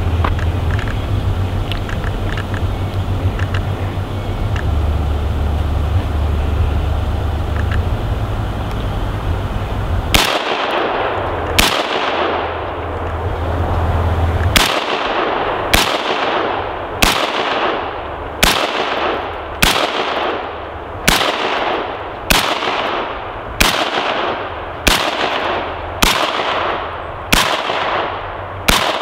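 AR-15 semi-automatic rifle firing single shots, about fifteen at an even pace of roughly one every second and a quarter, starting about ten seconds in, each shot trailing off in a short echo. Before the shooting, wind rumbles on the microphone.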